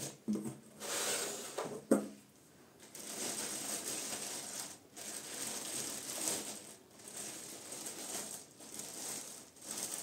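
Clear plastic wrapping crinkling and rustling in patches as it is pulled off a subwoofer, with cardboard handled and a sharp knock about two seconds in.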